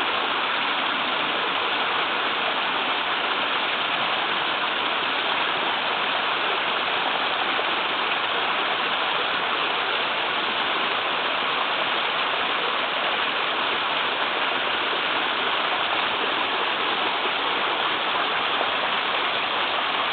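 Small waterfall in a river flowing strongly: a steady, even rush and splash of falling water.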